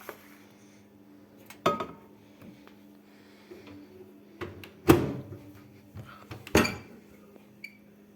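A few sharp knocks and clunks of things being handled in a kitchen, about four strokes, the loudest about five seconds in, over a steady low hum.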